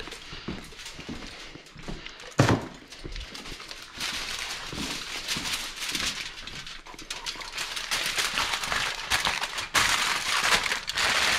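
Sheet of aluminium foil crinkling as it is pressed and folded around a cake pan, a dense crackly rustle from about four seconds in. Before that, light handling clicks and one sharp knock.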